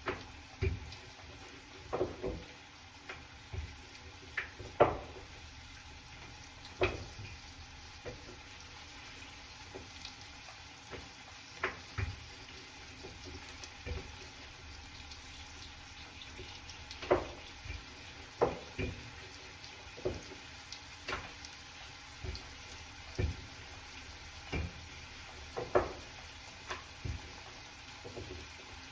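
Potato preparation with water: irregular sharp knocks and clacks of potatoes and utensils every second or two, over running or splashing water.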